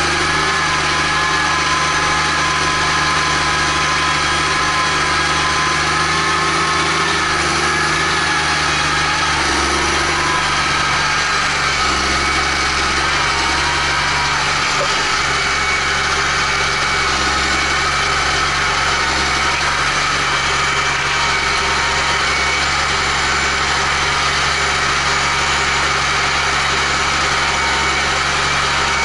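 Case IH Magnum 310 tractor's six-cylinder diesel engine running steadily while the tractor drives along, heard close to its vertical exhaust stack, with a thin whine above the engine note.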